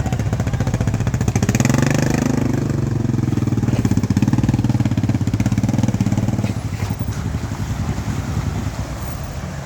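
An off-road vehicle's engine running steadily, swelling louder about two seconds in and easing off after about six and a half seconds.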